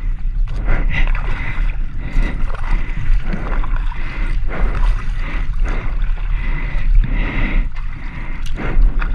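Kayak paddle strokes: the blades splashing and sloshing in the river water at an uneven rhythm, under a steady low rumble.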